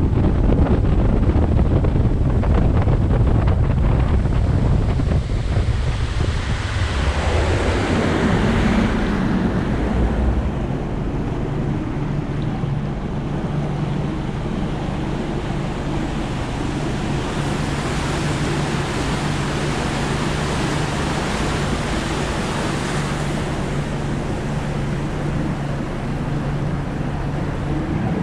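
Bass boat's outboard motor running at speed with wind buffeting the microphone. The engine note falls about six to eight seconds in as the boat slows, then holds a steady lower drone over the rush of water along the hull.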